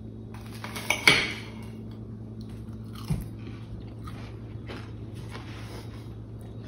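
Knife and fork on a plate cutting into crisp beer-battered fried fish, with a couple of sharp clinks about a second in, then close-up chewing of the bite. A steady low hum runs underneath.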